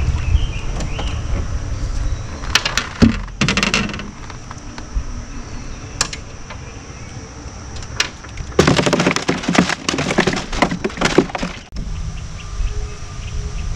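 Handling noise from a fisherman unhooking a just-caught bream and working his rod and tackle in a small boat: groups of sharp clicks and rattles, one group a few seconds in and a denser, longer spell of about three seconds past the middle, over a low rumble.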